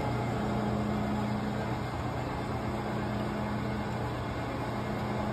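Vertical milling machine running in slow gear, its roughing end mill cutting a notch in a metal bracket: a steady hum.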